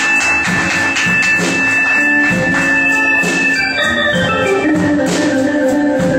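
Live blues band playing an instrumental passage: a keyboard on an organ sound holds long sustained chords, with drum strikes and the rest of the band behind it.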